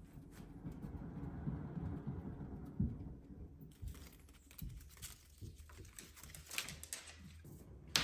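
Cat exercise wheel turning slowly under a walking cat, a low rumble from the wheel. Later come light clicks and taps, and a sharp knock near the end.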